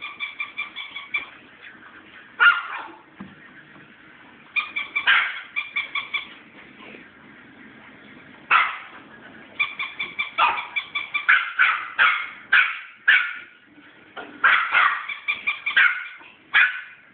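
Small dogs, a miniature dachshund puppy and a Pomeranian, yipping and squealing in play. The sound comes in runs of short, high-pitched yips, with sharper single yips about two and a half seconds in and again about eight and a half seconds in.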